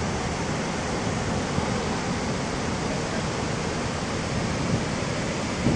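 Water thundering down a dam spillway from many open crest gates and crashing into the river below: a steady, heavy rush with no letup.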